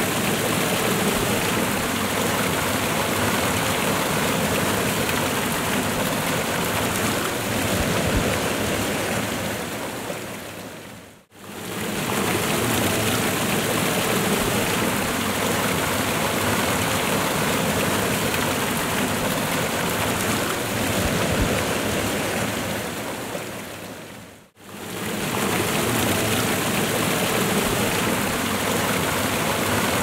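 Waterfall: a steady rush of falling water splashing into a pool. It fades out and back in twice, about a third and four-fifths of the way through, where the recording loops.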